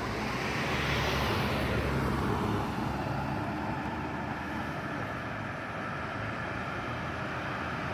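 Medium-size bus engine pulling up a steep uphill grade as the bus passes. The engine and tyre noise swell about a second in, then ease off.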